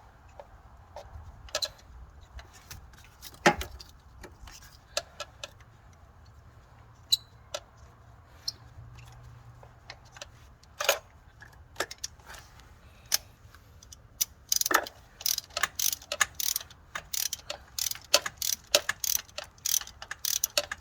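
Scattered light metallic clicks and taps of hand tools being handled. About two-thirds of the way in, a quick run of ratchet clicking starts, a spark plug ratchet being worked on the engine.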